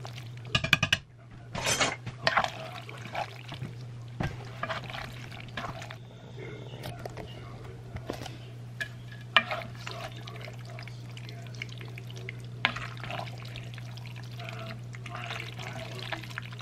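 A spoon stirring penne through thick meat-and-carrot sauce in a heavy pan: wet squelching with scattered scrapes and knocks against the pan, over a steady low hum.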